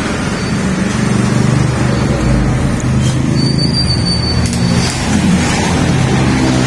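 A motor vehicle's engine running steadily, with the noise of road traffic.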